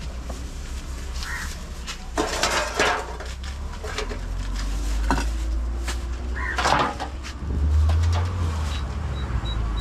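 Clattering of metal trays and a bowl as fish are handled on a tiled stall counter: scattered clicks and a few short scraping noises. A low rumble comes in for about a second near the end.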